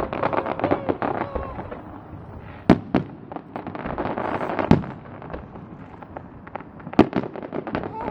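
Aerial fireworks display: dense crackling throughout, with four loud sharp bangs, two close together about three seconds in, one near five seconds and one about seven seconds in.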